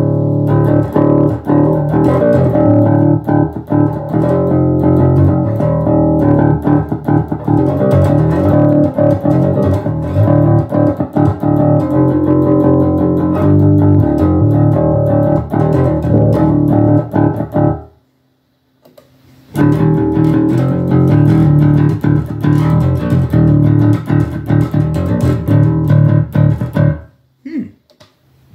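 Electric bass (a Jackson JS1M in Drop D) played through a Fender Rumble 25 V3 combo amp with its overdrive engaged, giving a little grit. The riff breaks off for about a second and a half two-thirds of the way through, then resumes and ends with a few scattered notes.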